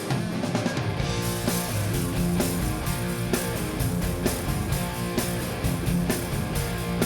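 Live rock band playing an instrumental passage: electric guitars over bass guitar and a drum kit, the bass and drums coming in at the start and the full band in by about a second in.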